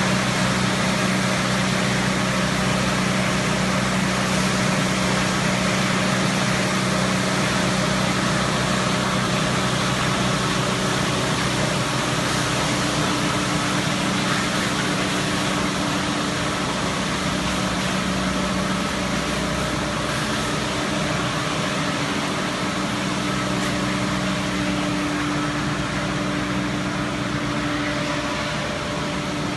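Wood pellet production line machinery running steadily under load: a constant motor hum over a broad, even mechanical noise, with no starts or stops.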